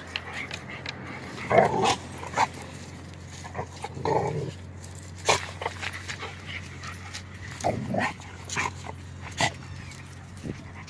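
Two puppies play-fighting: a few short vocal noises from the dogs, about three, amid scattered scuffling clicks.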